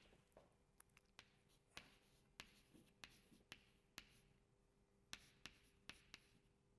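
Chalk writing on a blackboard: a string of faint, sharp, irregular taps and short scratches, about two a second, as figures are written.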